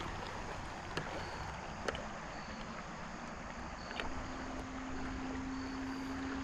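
Creek water running steadily over a shallow riffle, with a few light clicks. About four seconds in, a steady low hum comes in.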